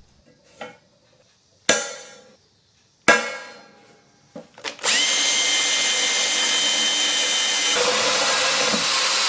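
Two ringing hammer blows on a punch against quarter-inch steel plate, about a second and a half apart. Then, about five seconds in, an electric drill starts and runs steadily, its twist bit boring a pilot hole through the steel plate.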